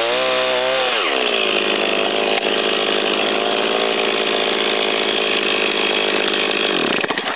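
Chainsaw engine revving up and dropping back about a second in, running steadily, then winding down and cutting off near the end.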